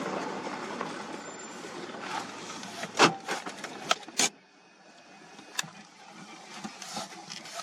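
Safari car running on a rough dirt track, with a few sharp knocks, its noise cutting off abruptly a little over four seconds in, as the car is halted. Then only faint background with a few small clicks.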